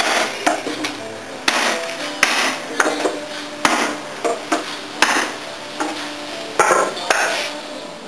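A hammer pounds the top of a wooden ram, about ten blows at a steady pace, packing loose aluminum radiator-fin scrap tight in a homemade wooden compactor to form a brick.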